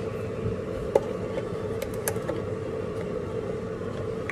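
Light clicks and taps from handling spice containers and a measuring spoon over a plastic mixing bowl, the sharpest about a second in and a few fainter ticks around two seconds, over a steady hum.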